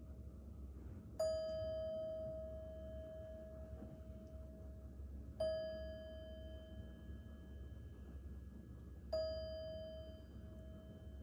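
Small metal singing bowl held on the palm and struck three times with a striker, about four seconds apart; each stroke rings out with a clear bell-like tone and several higher overtones that slowly fade.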